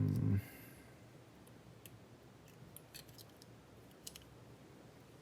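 A brief vocal sound right at the start, then a few faint, sharp metallic clicks spaced a second or so apart. The clicks come from tools working on a Kwikset Gen 2 lock cylinder while its retaining clip is pried off.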